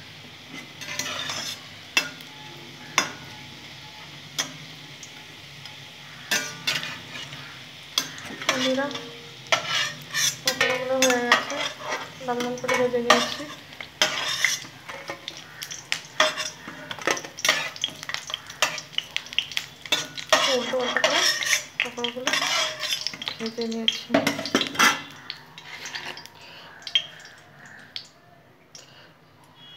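A metal utensil clinking and scraping against a steel kadai as coriander-leaf fritters are turned and lifted out of hot frying oil, with the oil sizzling. There are some short squeaks around the middle, and the clatter dies away near the end.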